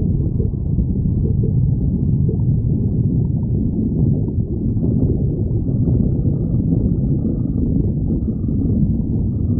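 A person's stomach growling: a continuous deep, muffled rumble and gurgle.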